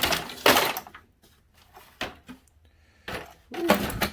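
Two bursts of scraping and rattling as a motorcycle's plastic fairing panel is worked loose, one right at the start and one about three seconds in, with a brief squeak in the second.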